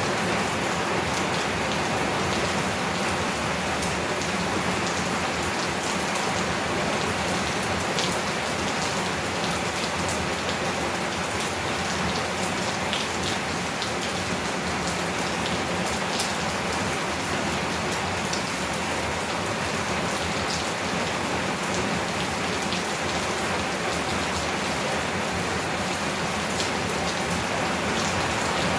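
Heavy rain falling steadily, an even wash of rain noise flecked with sharp ticks of individual drops striking.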